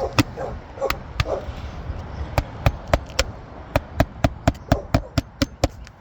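Hammer tapping on asphalt roof shingles: a quick, uneven series of sharp taps, about three a second.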